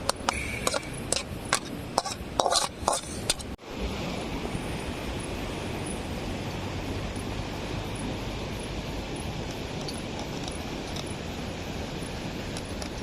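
A metal spoon scraping and clinking against a cooking pan as cooked potato masala is scooped out, a quick run of sharp clinks over the first few seconds. After a sudden break, only a steady background hiss remains.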